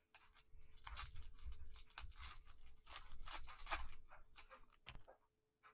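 Foil trading-card pack (Donruss Optic basketball) being torn open and crinkled by gloved hands: a quick run of ripping and crinkling noises with one sharp crack near the end, stopping about five seconds in.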